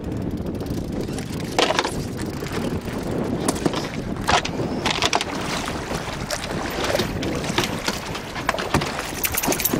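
Fishing boat under way at trolling speed: a steady low rumble of the boat and water running along the hull, with wind on the microphone. Irregular sharp knocks and slaps break in every second or so.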